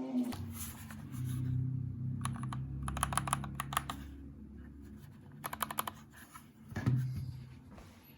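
Typing on a MIIIW Art Series mechanical keyboard with Gateron Yellow Pro switches and PBT keycaps: rapid keystroke clicks in three short bursts, with a low hum underneath and a single louder knock near the end.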